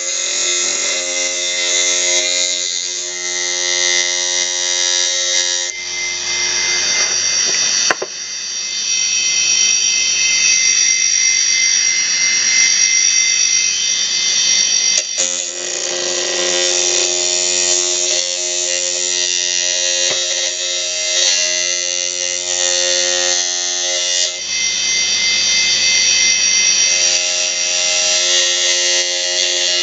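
Kitchen knife blade ground against the spinning platter of an opened 3.5-inch hard disk drive, a steady metallic grinding hiss over the drive's motor whine. The sound changes abruptly several times as the blade is pressed and moved, most sharply about a quarter and about halfway through.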